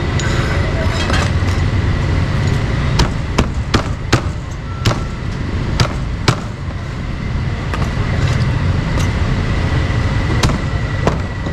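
Cleaver chopping cooked meat on a wooden block: about eight sharp, irregular chops, bunched from about three to six seconds in, with another near the end. A steady traffic hum runs beneath.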